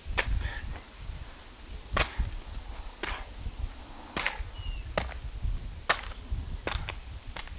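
Shin and foot kicks landing on a tree trunk: a series of sharp smacks, roughly one a second.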